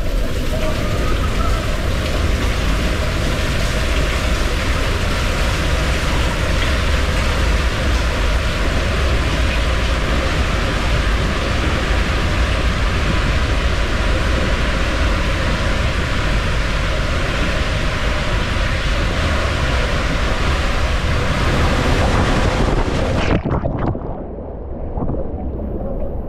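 Rushing water and wind buffeting the microphone on a ride down a water slide, a steady loud roar that stops abruptly near the end.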